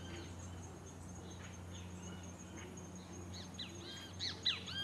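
Birds calling in forest: scattered short chirps, then a cluster of louder, quick arched calls near the end, over a low steady hum.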